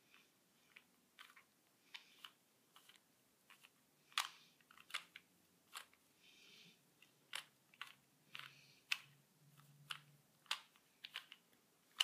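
A 2x2 Rubik's cube being twisted by hand: irregular sharp plastic clicks as the layers turn, about one or two a second.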